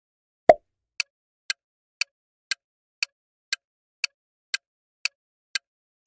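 Countdown timer ticking sound effect: short, sharp ticks evenly spaced about two a second, beginning with a louder first tick about half a second in.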